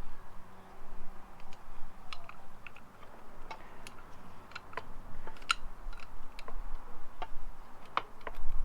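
Irregular light clicks and knocks of metal parts being handled as a motorcycle rear wheel, spindle and spacers are worked into place.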